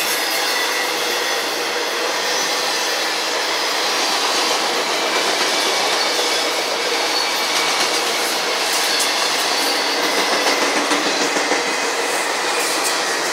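Autorack freight cars rolling past on steel wheels: a steady rattle and rumble of wheels on rail, with a faint high wheel squeal.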